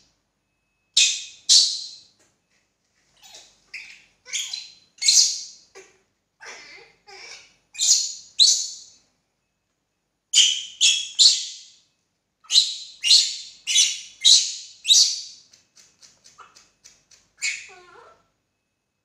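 Baby monkey giving shrill, high-pitched cries in short bursts, two or three at a time with pauses between, ending in a quick run of short squeaks.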